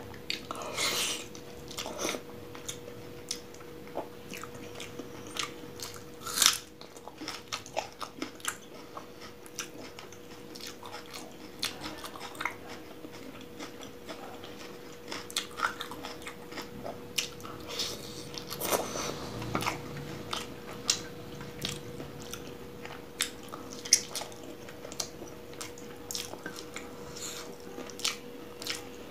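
Close-miked eating with the hands: biting and chewing pieces of chicken from a spicy chicken curry, with many short wet smacks and crunches and one sharp, loud crunch about six and a half seconds in. Near the end, fingers squish through gravy-soaked rice.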